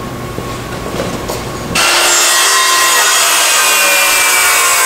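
A few light knocks, then a DeWalt circular saw starts suddenly about two seconds in and cuts through a board. It runs loud and steady, its pitch sagging slightly under the load of the cut.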